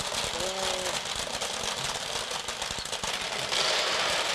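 Soybeans rattling through a homemade hand-cranked soybean sorter as its rollers turn and its sieve is shaken, a fast continuous clatter of many small hard beans.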